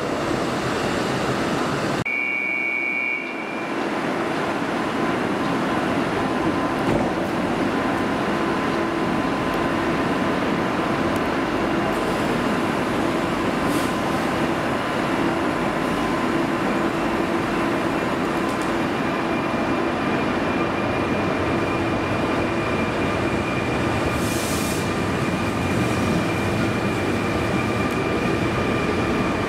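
Fertagus series 3500 double-deck electric multiple unit moving along the platform: a steady rumble of running gear with a steady electric whine, with a tone starting to rise near the end.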